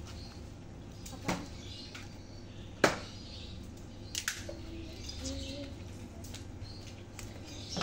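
Birds chirping in the background, with a few sharp clicks and knocks from handling; the loudest is a single sharp click about three seconds in.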